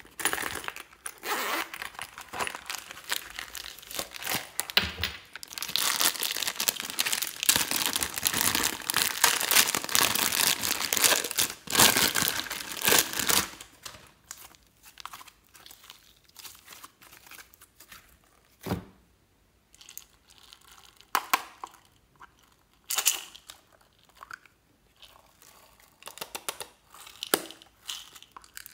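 Crinkling and rustling of a shiny vinyl zip purse being handled and opened, dense and loud for about thirteen seconds. Then quieter, scattered handling sounds, with a soft thump about two-thirds of the way through and a few small plastic clicks near the end.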